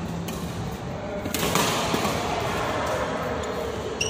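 Badminton doubles rally: sharp racket hits on the shuttlecock, two of them about a second apart, with voices in the background.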